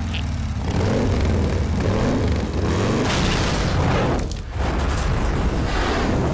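Cartoon sound effect of a fiery blast: a loud, dense rumbling rush of flame that carries on for several seconds, dips briefly about four seconds in, and cuts off abruptly at the end.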